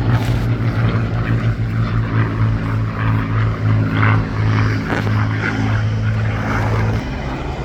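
Piston engines of a propeller-driven Second World War warbird in flight, a steady deep drone that drops in level about seven seconds in.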